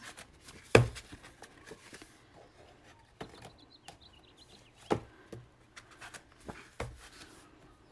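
Loose-leaf planner pages being turned on a binder's metal rings: a few sharp page flicks and slaps, the loudest about a second in and two more later, with soft paper rustling between.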